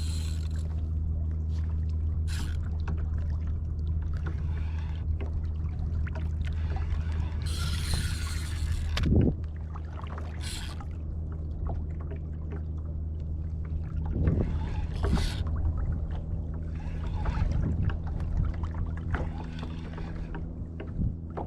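A steady, low-pitched motor hum on a boat on the water, with short bursts of water splashing and spray a few times.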